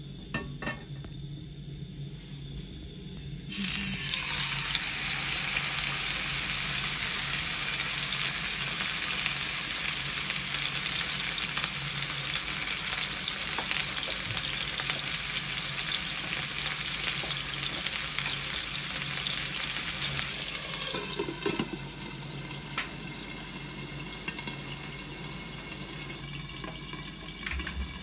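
Food frying in a hot pan, sizzling steadily. The sizzle starts suddenly a few seconds in and eases off to a quieter sizzle for the last several seconds.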